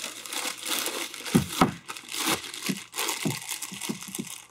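Clear plastic bag crinkling and rustling as it is worked by hand around a freshly honed engine cylinder, with a couple of dull knocks about a second and a half in.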